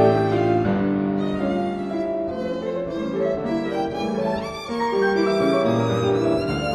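Background music led by violin, with sustained notes over a low accompaniment.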